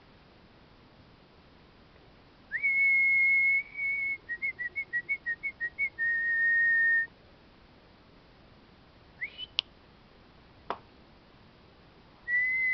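A person whistling a dog call: a long held note, a quick warbling trill, then a lower held note. Then come two short rising whistles and one quick falling whistle, and the same long-note-and-trill call starts again near the end.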